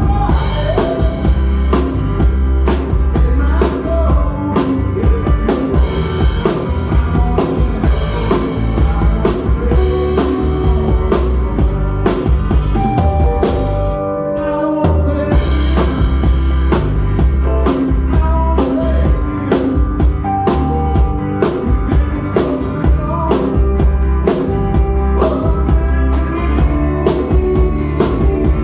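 Rock band playing live: drum kit with kick drum, electric lead guitar and bass guitar, with a brief break in the drums and bass about halfway through.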